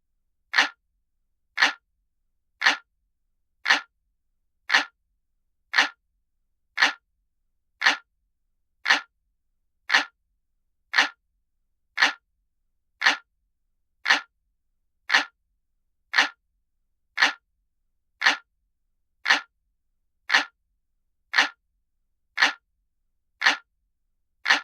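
Looped clock-ticking sound effect: even, sharp ticks at about one per second, like a traditional analog clock.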